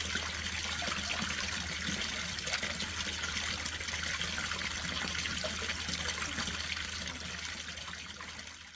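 Water pouring and splashing steadily over the rim of a garden water fountain, easing off a little near the end.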